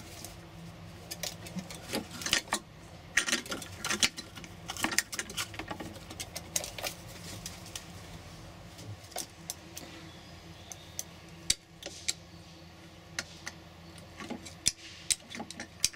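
A crow's beak and claws tapping and scraping on the windowsill and its fittings: irregular sharp clicks and knocks in small clusters.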